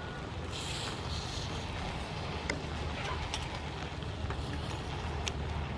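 River snails sizzling in their shells on a wire grill rack over a fire, with a brief hiss about half a second in and a few sharp clicks over a low steady rumble.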